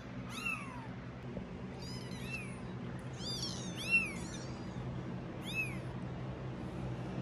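19-day-old kittens mewing: about five short, high-pitched mews, the loudest about four seconds in, over the steady hum of a fan.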